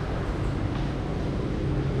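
Steady low rumble of street traffic, a vehicle engine running close by.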